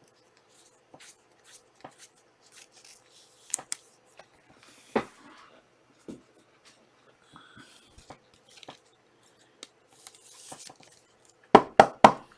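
Trading cards being handled on a table: light rustling, sliding and small taps, with a quick run of sharp clicks near the end.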